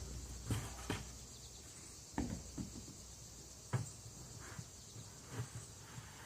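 A few scattered knocks, like footsteps on the ground, over a steady high chirring of insects.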